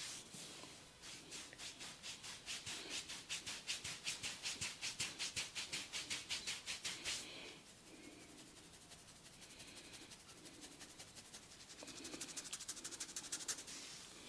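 A barber's hands rubbing rapidly over a client's head during a massage, in an even run of about six strokes a second that stops about seven seconds in. A shorter, faster run of rubbing strokes follows near the end.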